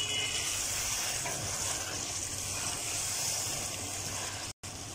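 Chicken curry with tomatoes and green chillies sizzling in an aluminium karahi as a wooden spatula stirs it: a steady frying hiss. It cuts out for a moment near the end.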